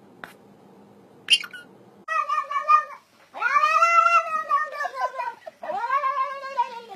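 Two short clicks, then a calico cat meowing in three drawn-out calls, each rising and then falling in pitch; the middle call is the longest.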